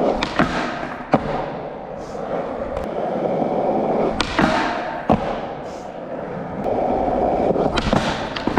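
Skateboard wheels rolling on hard ground with a steady rumble, broken by several sharp clacks of the board.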